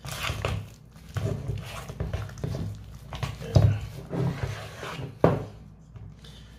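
Metal utensil scraping and knocking against a stainless steel bowl while stirring sticky potato dough, in irregular strokes with two sharper knocks a little after halfway and near the end.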